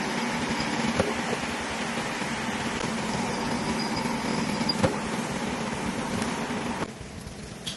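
A machine running steadily with a low hum, with a couple of sharp clicks. The sound drops suddenly to a quieter level near the end.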